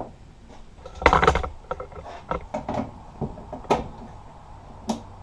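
Objects being handled and set down: a louder rattling clunk about a second in, then scattered light knocks and a couple of sharp clicks.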